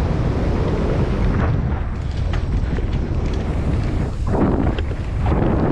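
Mountain bike riding down a dirt trail: heavy wind buffeting on the microphone over the rumble of the tyres, with scattered clicks and rattles and a couple of louder rough surges in the second half.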